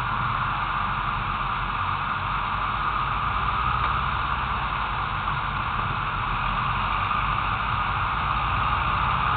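Steady hiss over a low rumble: road and wind noise picked up by a camera mounted low on the outside of a car driving in slow traffic.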